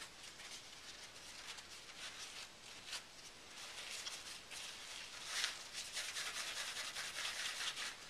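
Kitchen roll rubbing and scrubbing on a CPU's metal heat spreader, wiping off old, thickly applied thermal paste loosened with white spirit. A light, scratchy rustle in irregular strokes, busier in the second half.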